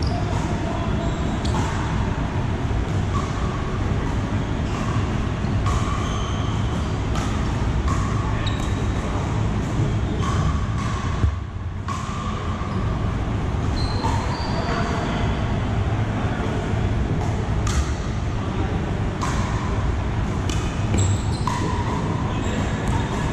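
Pickleball paddles hitting hollow plastic balls, in irregular sharp pops from many courts at once, echoing in a large indoor hall over a steady din of players' voices.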